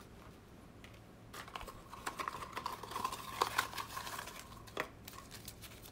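A small cardboard product box being handled: faint rustling, sliding and light clicking of card and small parts, starting about a second and a half in and dying away near the end.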